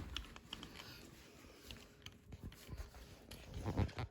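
Faint clicks, scrapes and light knocks of a steering wheel's plastic trim and switch button clusters being handled and pulled loose by hand. A few louder knocks come near the end.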